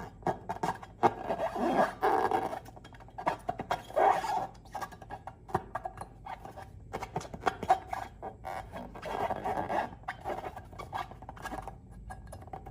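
Slime being squeezed and worked by hand: sticky, wet squelches with rapid crackling clicks, coming in louder bursts.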